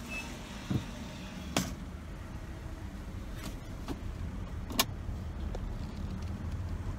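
Car running at idle, heard from inside the cabin as a steady low rumble, with a few sharp clicks and knocks, the loudest just before five seconds in.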